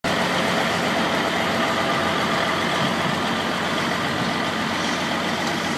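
1992 Maxigrind 425 horizontal wood grinder running steadily, driven by its CAT 3406 diesel engine.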